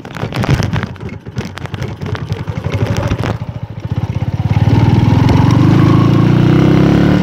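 Motorcycle engine running over a rough dirt track, with irregular knocks and rattles. About four and a half seconds in, the engine opens up and gets much louder, its note rising slightly and holding steady.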